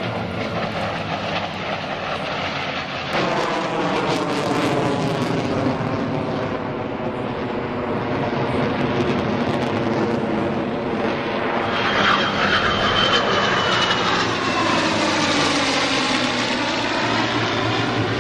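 An F-22 Raptor and two P-51 Mustangs flying past in formation: the steady drone of the Mustangs' Merlin V-12 engines and propellers blended with jet engine noise. The sound grows louder about three seconds in and is loudest in the second half as the formation passes, with a sweeping, phasing quality.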